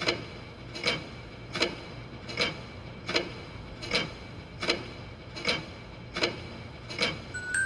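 Slow, even clock-like ticking, about one tick every 0.8 seconds, each tick with a short bright ring. A chime melody comes in near the end.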